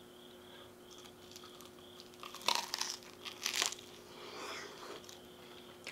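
Biting into a crisp stuffed waffle filled with hot strawberry pie filling: two crunchy bites a second apart, a couple of seconds in, then chewing.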